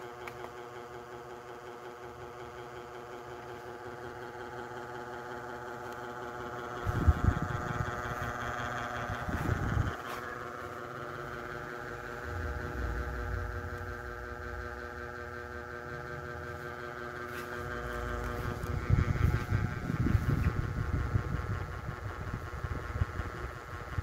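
A 28-inch Niga mini ceiling fan running at speed, its motor giving a steady hum of several even tones. A low rumble swells up twice, a few seconds in and again later.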